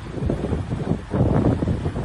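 Wind buffeting the microphone in irregular gusts, surging and easing about once a second.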